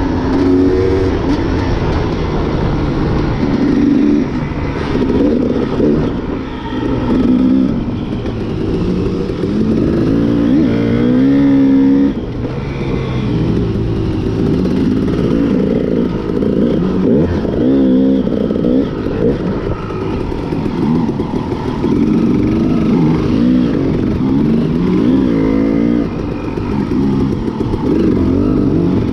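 Dirt bike engine heard up close from the riding bike itself, its pitch climbing and dropping again and again as the throttle is opened and closed through the gears on a dirt trail.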